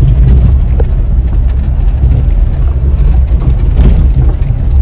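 Road noise heard inside a car driving over a rough, unpaved dirt road: a steady low rumble from the tyres and suspension, with a brief knock about four seconds in.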